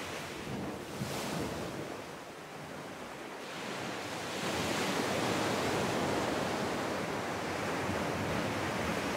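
Ocean surf breaking and washing up a sandy beach. A small wash comes about a second in, then a bigger wave builds from about three and a half seconds and stays loud to the end.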